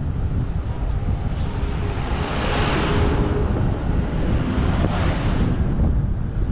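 Heavy wind buffeting on the microphone of a camera mounted on a motorbike moving at road speed, with vehicle noise under it. A rushing hiss swells about two and a half seconds in and again around five seconds.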